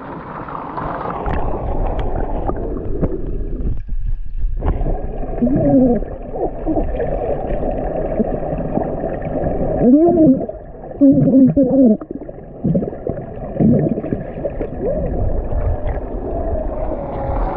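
Muffled underwater sound of a swimming pool recorded by a submerged camera: a steady water rumble with gurgling, and several muffled, gliding voice sounds of a person vocalising under the water.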